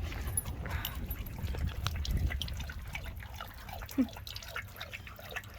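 Footsteps of a hiker walking on a trail, heard as scattered light clicks over a steady low rumble on the microphone.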